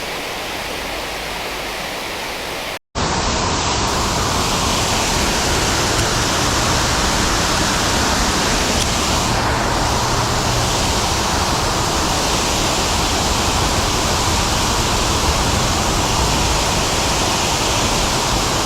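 Water pouring over a creek spillway: a steady rushing noise. It cuts out abruptly for a moment about three seconds in, then comes back a little louder.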